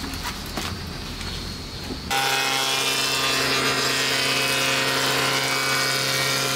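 A few light knocks over a low hum, then about two seconds in an old cast-iron wood planer starts up loud and runs steadily as a scrap board is fed through it, a steady hum with a hiss of the cut.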